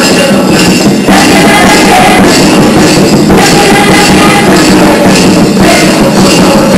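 Loud live music from a stage performance, with drumming and singing voices, continuous and at a steady, very high level.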